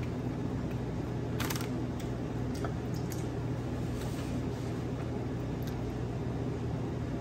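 Steady low room hum with a few short clicks and one brief crackle about a second and a half in, the small sounds of someone eating fried fish and chips at a table.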